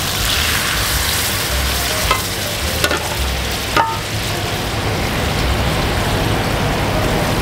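Teriyaki sauce poured into a hot skillet of seared chicken thighs, sizzling and boiling hard with a steady bubbling hiss. A few sharp clicks sound about two to four seconds in.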